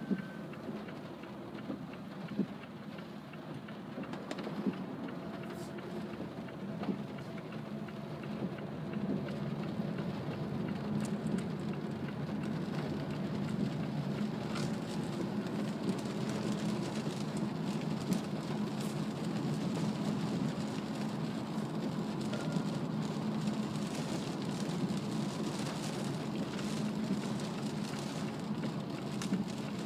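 Heavy rain drumming on a car and tyres hissing on a soaked expressway, heard from inside the cabin of a moving Mazda CX-3, with scattered sharp taps of drops. The rush grows a little louder over the first ten seconds, then holds steady.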